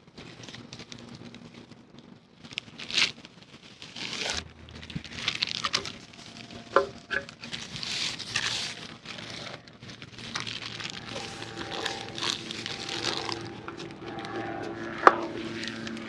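Rustling and crinkling of a large beach-fishing kite and its plastic wrapping being handled and unpacked, in irregular bursts. A sharp click near the end.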